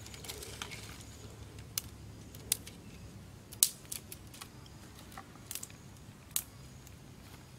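Dry sticks and twigs being handled and snapped by hand: a scatter of short sharp clicks and cracks, the loudest about three and a half seconds in.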